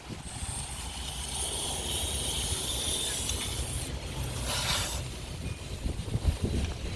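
Compressed air hissing through an air-hose chuck into the tyre valve as the tyre is inflated, with a short, louder burst of air about four and a half seconds in. A low rumble runs underneath.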